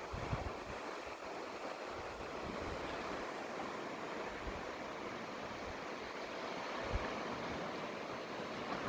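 Steady wash of sea surf on the shore, with a brief low buffet of wind on the microphone about seven seconds in.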